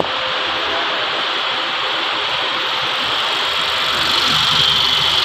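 A 2014 Honda Accord's engine idling steadily after a CVT fluid and filter change. It gets a little louder, with more hiss, from about four seconds in.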